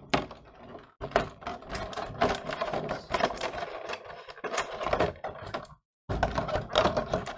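Plastic packaging and cardboard being handled: dense, irregular crinkling and clicking, with a brief break about six seconds in.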